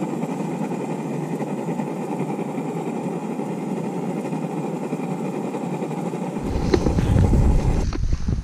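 Steady rushing of wind and sea; about six seconds in, wind starts buffeting the microphone with a low rumble.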